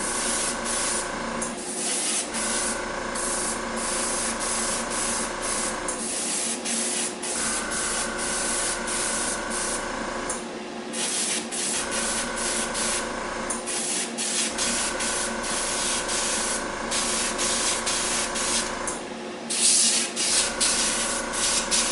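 Airbrush spraying paint onto a small model part, a hiss in bursts of a few seconds with short pauses between as the trigger is released and pressed again. A steady motor hum runs underneath.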